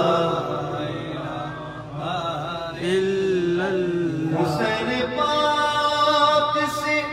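A man chanting an Urdu devotional verse in a slow, drawn-out melodic voice, ending on a long held note.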